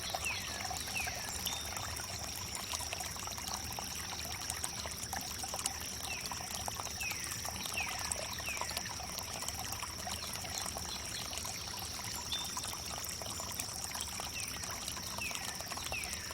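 Water trickling and pouring steadily over wood, with small birds calling in short falling chirps, a few at a time, and a steady high-pitched whine.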